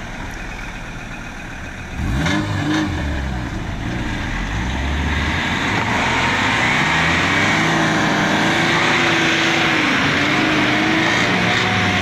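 Subaru Impreza wagon's flat-four engine revving up under load about two seconds in and held at high revs as it drags a towed van through mud, tyres spinning and throwing mud.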